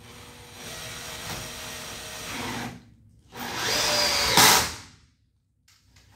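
Cordless screwdriver running in two bursts, driving self-tapping screws into the ceiling profile. The second burst is louder and stops sharply about five seconds in.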